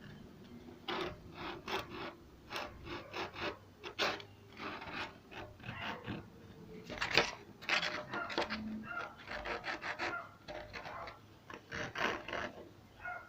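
Repeated rasping, scraping strokes of a hand tool being worked back and forth, about two strokes a second and uneven in strength.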